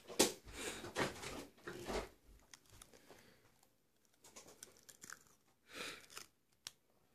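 Plastic film dressing and tape being peeled off gauze on skin: irregular crinkling and tearing, busiest in the first two seconds, with another short burst near the end.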